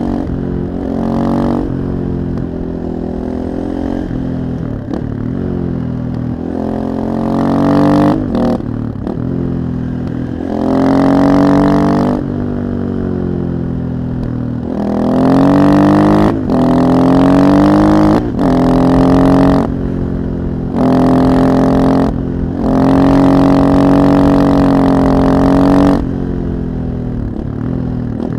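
KTM 640 LC4 single-cylinder four-stroke supermoto engine with an Akrapovic exhaust, under way at part throttle at first, then pulled hard in several loud bursts, each cut by a short dip as the throttle closes for a gear change. It eases off near the end.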